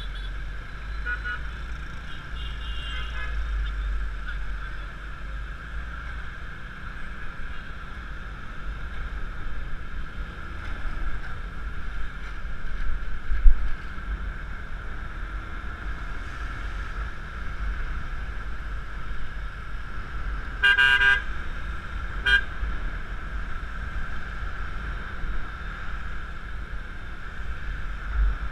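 Motor scooter riding through city traffic: steady rumble of wind and road noise on the helmet- or bike-mounted camera's microphone, with a loud bump about halfway. A vehicle horn honks for about a second roughly two-thirds of the way in, followed by a short second toot.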